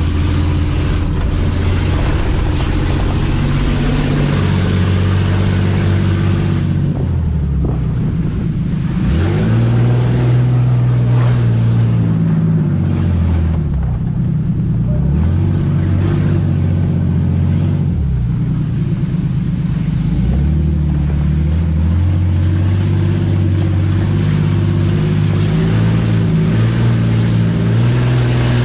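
Off-road 4x4's engine pulling along a dirt track, its note falling and climbing again several times as the throttle comes off and on.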